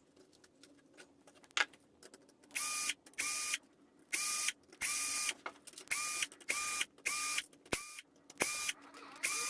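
A small electric motor run in about nine short, evenly spaced bursts, each spinning up quickly to a steady whine and stopping sharply. It is preceded by a few single clicks.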